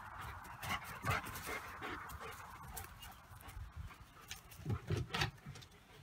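German shepherd puppy playing in dry brush: scattered crackling and rustling of twigs, with a few short dog noises.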